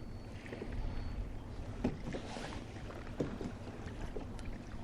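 Sea kayak drifting: water lapping against the hull over a low rumble, with two faint knocks, about two and three seconds in.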